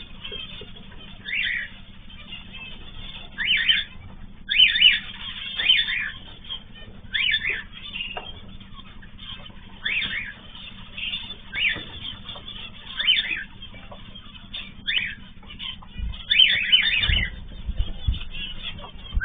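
Cage birds (cockatiels, zebra finches and canaries) calling in short, repeated calls, about one every second or so. A few low thumps come near the end.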